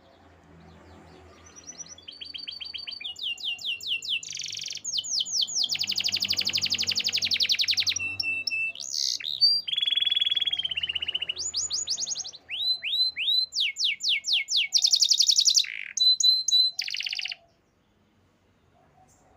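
Canary singing a long song made of successive rapid trilled phrases, each a fast run of the same note repeated, some notes sweeping downward. It starts about two seconds in and stops abruptly a couple of seconds before the end.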